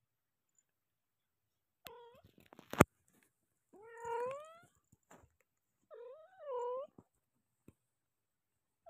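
Young kitten mewing four times, the longer calls rising in pitch. A single sharp click just under three seconds in is the loudest sound.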